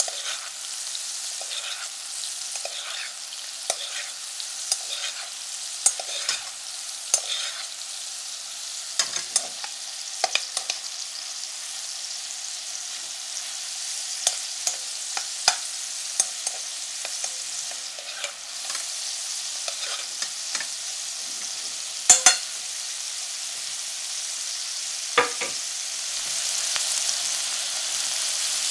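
Pork tenderloin medallions sizzling in butter and oil in a frying pan, with a metal spoon clicking and scraping against the pan as the fat is spooned over them. The sharpest clinks come about two-thirds of the way through, and the sizzle grows a little louder near the end.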